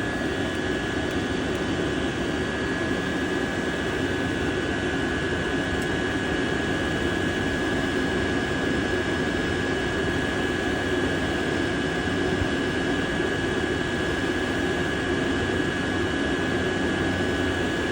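Diesel air heater running steadily, its blower giving an even rushing noise with a constant high whine.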